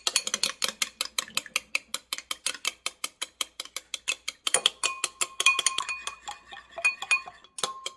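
Metal spoon beating egg white and melted butter in a ceramic bowl, clinking rapidly against the bowl at about five or six strokes a second. The bowl rings between strokes in the second half, and the strokes stop briefly near the end.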